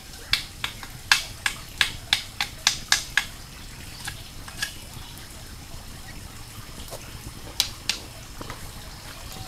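A knife whittling a long wooden stick, a quick run of sharp shaving strokes about three a second for the first three seconds, then a few scattered strokes.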